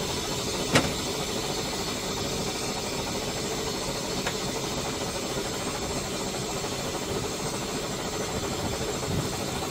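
Steady hiss and low rumble of the 1859 steam yacht Gondola under way, with a single sharp knock about a second in.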